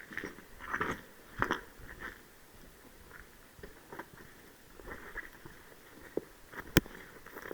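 Irregular crunching and rustling, with one sharp crack near the end.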